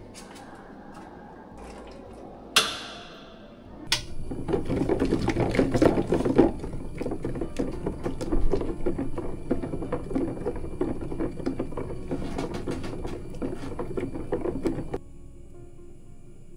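Hot water pouring from a water dispenser into a container, a steady splashing fill that starts after two sharp clicks a few seconds in and cuts off suddenly near the end.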